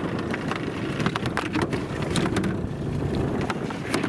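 Wind rumbling on the microphone, with a scatter of short knocks and clatter from gear being handled in a fishing boat.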